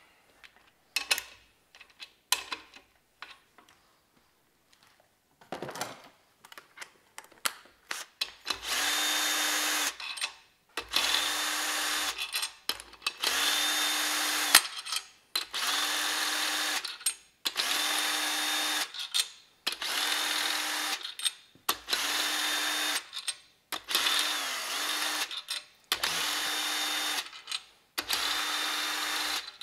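A few light tool clicks at first, then about ten short runs of a Ryobi cordless drill with a socket, each about a second long and steady in pitch. The drill is spinning the bearing-cap bolts on a BMW M52 crankshaft as the caps come off again so the bearing clearances can be checked.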